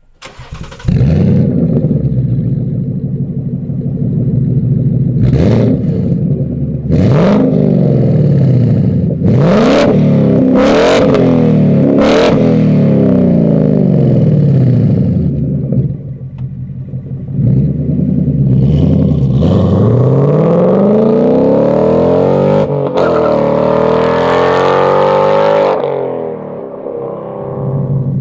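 Ford Mustang engine through a Kooks Shotgun valved exhaust. It idles, is blipped in several quick sharp revs, then is revved in longer rising and falling sweeps, and settles back to idle near the end.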